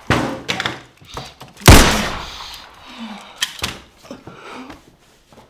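Several heavy thumps and slams, sharp hits that each fade quickly, the loudest about one and a half seconds in and a smaller one a couple of seconds later.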